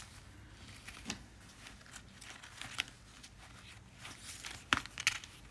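Faint rustling and crinkling of paper and card, with a few short soft clicks and taps, as the pages of a handmade paper journal are handled and turned.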